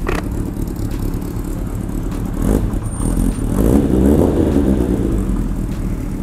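Honda CB750K's air-cooled inline-four engine running steadily, growing louder for a moment about four seconds in.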